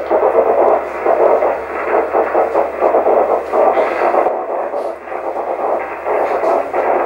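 Morse code (CW) signal heard on a 6-metre receiver via auroral propagation: the keyed signal comes through in short, irregular on-off pulses as a rough hiss rather than a clean tone. The pure CW tone is smeared by Doppler spread as it bounces off the aurora, the typical sound of an auroral contact.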